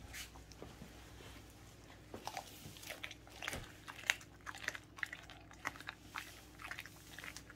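Welsh corgi chewing on a raw whole chicken, with irregular crunches and clicks of teeth on meat and bone. The crunches are sparse at first and come thick from about two seconds in.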